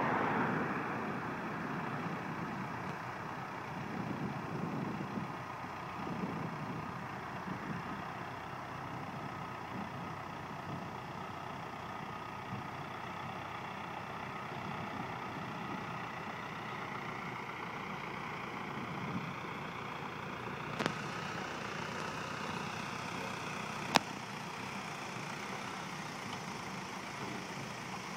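Engine of potato-harvesting farm machinery running steadily, with two sharp clicks a few seconds apart near the end.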